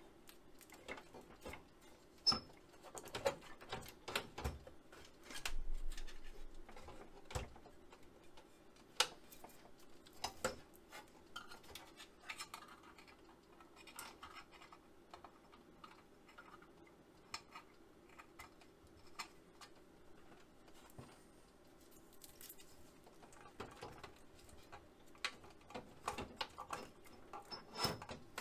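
Irregular clicks, taps and knocks of hands handling a replacement CRT and the metal frame of an opened Apple Lisa, with a dull bump about six seconds in. A faint steady hum runs underneath.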